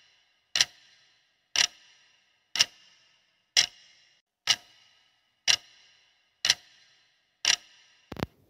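Clock-ticking sound effect of a quiz countdown timer: sharp, evenly spaced ticks, one a second, eight in all. Just before the end a different short double click marks the timer running out.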